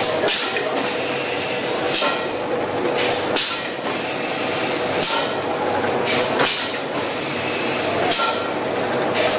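Toffee candy production machinery running: a steady mechanical hum with a short hiss about every one and a half seconds, in a regular cycle.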